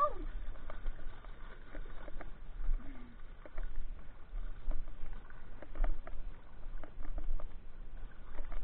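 Dogs wading through a shallow river, water splashing and sloshing in short irregular bursts, heard dulled through a waterproof camera case.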